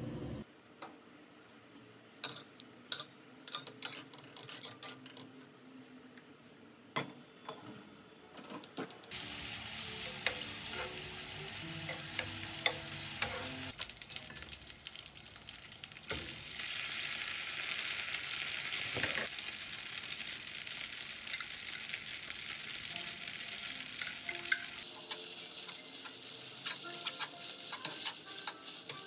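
Metal tongs clinking a few times against a pot of boiling spaghetti, then a frying pan sizzling steadily from about nine seconds in as bacon and pasta cook in it, the sizzle growing louder as the pasta is tossed in the sauce.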